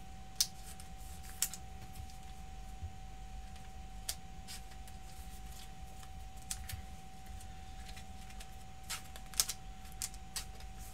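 Trading cards being slid into plastic sleeves and rigid toploaders: irregular light plastic clicks and taps, several close together near the end, over a faint steady hum.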